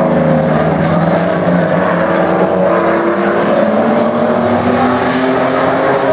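A pack of V6 modified saloon race cars lapping a short oval, several engines running at once. Their overlapping notes rise and fall slowly as the cars go round.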